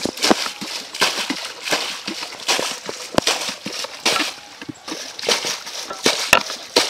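Muddy pond water splashing and sloshing in a rapid, irregular series as a plastic bucket scoops it up and flings it out, bailing a shallow pond.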